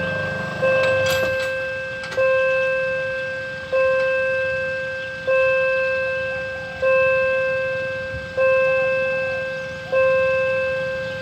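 Railway level crossing warning bell ringing, one clang about every one and a half seconds, each ring dying away before the next strike: the crossing signal is active, warning of an approaching train.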